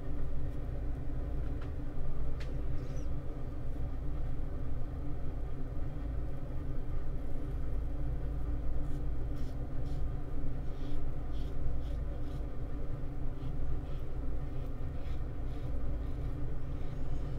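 Double-edge safety razor scraping through lathered stubble in short strokes, a little under one a second, from about eight seconds in, over a steady low rumble.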